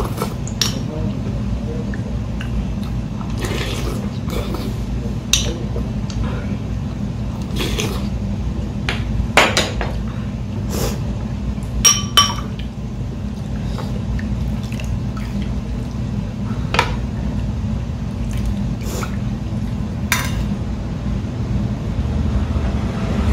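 Ramen broth being ladled with a metal ladle from a large bowl into a small ceramic bowl and sipped, with scattered small clicks and two ringing clinks of ladle on ceramic about halfway through, over a steady low hum.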